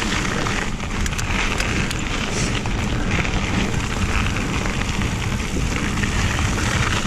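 Wind buffeting a mountain bike's helmet or chest camera at speed, mixed with the tyres rolling over a gravel trail, with a few sharp clicks of grit or rattling parts about a second in.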